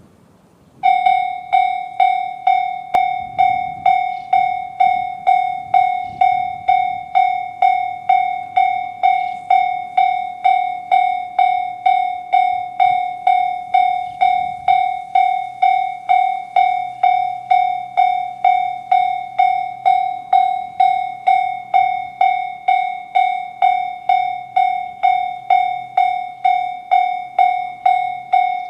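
Japanese level-crossing warning bell in the JR standard tone, starting about a second in and ringing steadily at a little under two strikes a second, each strike a clear tone that fades before the next: the crossing's alarm warning of an approaching train.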